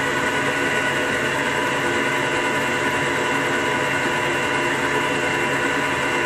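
Electric stand mixer running steadily at a constant speed, its motor giving a steady hum with several high steady tones as the beater creams softened butter in a stainless steel bowl.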